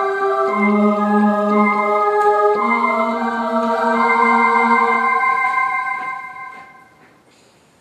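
Slow background music of long held notes in chords, fading out about six seconds in and leaving quiet room tone.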